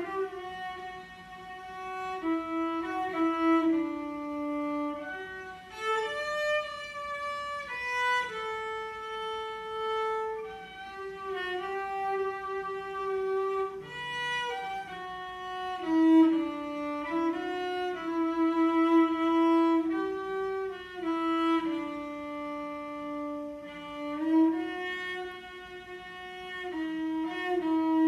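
Solo cello played with the bow: a melody of long, held notes, one note at a time, gliding smoothly from note to note.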